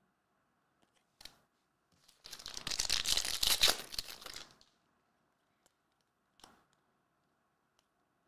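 Foil trading-card pack being torn open and crinkled for about two seconds, after a single light click a second in.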